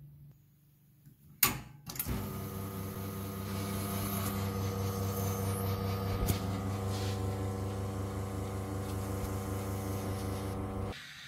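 Profitec Pro 700 espresso machine's rotary pump running steadily during a shot, starting just after a sharp click about a second and a half in and cutting off suddenly near the end.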